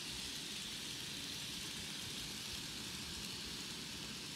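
Model freight cars rolling along plastic sectional track, a steady faint hiss of small wheels on the rails over a low, uneven rumble.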